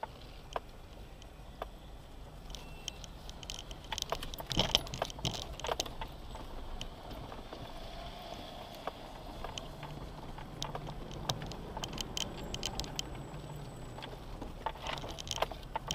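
4x4 driving over a rough gravel track: a steady low engine drone with frequent clicks and rattles, densest about four to six seconds in and again near the end.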